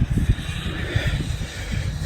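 Snowmobile engine running, under an uneven low rumbling.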